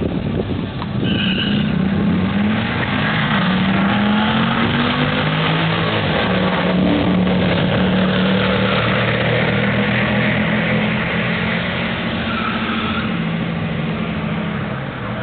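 Jeep Grand Cherokee SRT8 and Mercedes C63 AMG V8 engines at full throttle in a drag race. The engine note rises over the first few seconds, then holds as a loud, steady drone that eases slightly near the end.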